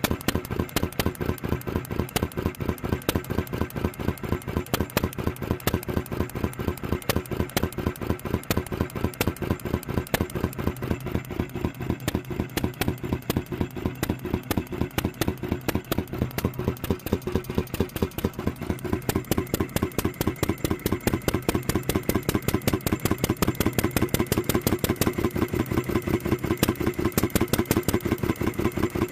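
IHC Mogul 1 hp hit-and-miss gas engine running with a rapid, even clatter of firing and valve gear, growing a little louder about two-thirds of the way in. It is running too fast and not running well.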